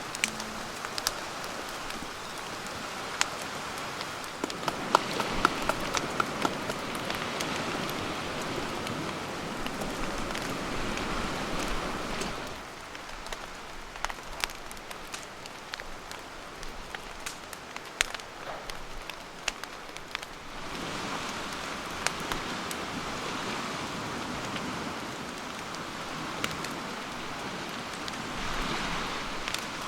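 Wood campfire crackling: a steady hiss with frequent sharp, irregular pops and snaps, a little quieter in the middle stretch.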